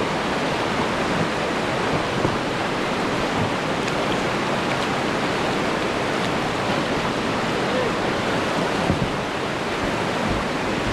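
Whitewater river rushing steadily over class 3 rapids, an even wash of water noise.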